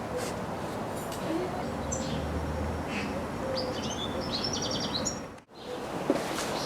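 Birds chirping in short, quickly repeated notes over a steady background hiss. The sound cuts out completely for a moment about five and a half seconds in.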